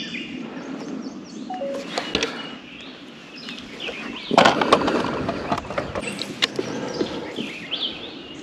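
Small birds chirping over scattered knocks and clatter, with a louder burst of clatter about four seconds in.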